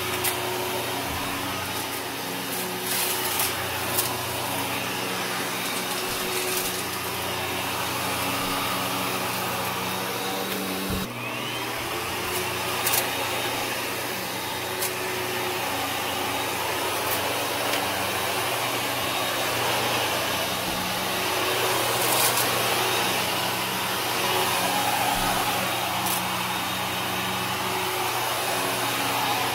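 Kenmore upright vacuum cleaner running steadily while it is pushed over carpet. Scattered crackles and ticks come from grit and debris being sucked up.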